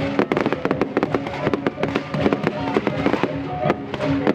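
Fireworks going off at close range: a dense, continuous run of sharp cracks and pops from bursting shells and fountains, many reports a second.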